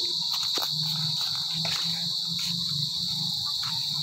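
A steady, high-pitched chorus of insects droning without a break, with a few faint clicks over it.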